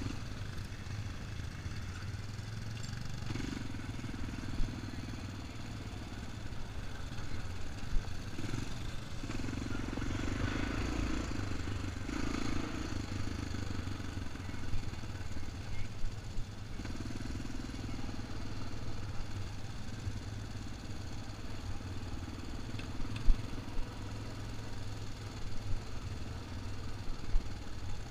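Quad bike (ATV) engine running while riding a dirt trail, swelling and easing several times with the throttle. Short sharp knocks and rattles from the bumps come through now and then.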